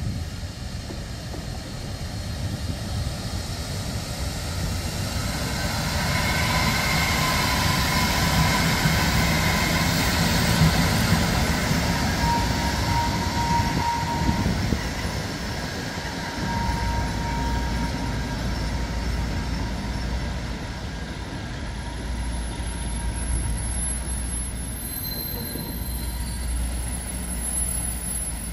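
Freight train hauled by an El 14 electric locomotive rolling past on the rails: the noise builds as the locomotive comes close, then a long string of timber and tank wagons rumbles by steadily. A thin, high squeal sounds through the middle stretch as the locomotive and first wagons pass.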